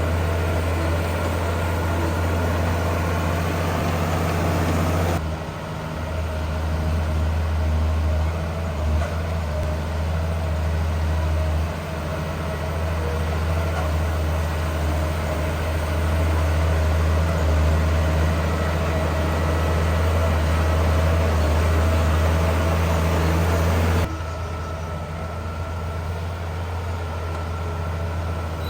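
Heavy diesel earthmoving machinery running steadily, a deep engine drone. The sound changes abruptly about five seconds in and again near the end.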